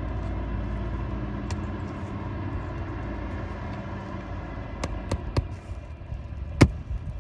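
A steady low motor rumble runs underneath a few light sharp taps about five seconds in, then one loud sharp strike near the end: nails being driven to fasten a replacement asphalt roof shingle.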